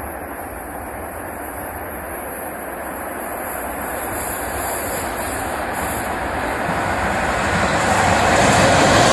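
An approaching passenger train headed by a ChS4 electric locomotive, with a TE33AC diesel locomotive in the consist: an even rail rumble with no distinct tones, growing steadily louder as the train nears.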